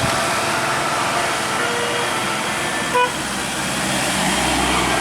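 Passing road traffic: steady engine and tyre noise, with a single brief horn toot about three seconds in and a heavy vehicle's deep engine rumble building near the end.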